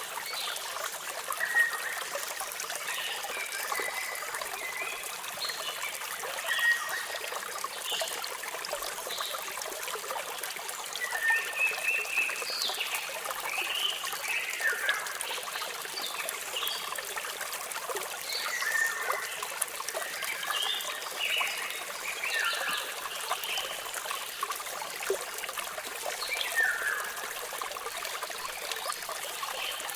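Steady trickle and splash of falling water from a small waterfall, with many short bird chirps and calls scattered throughout, several of them sliding down in pitch.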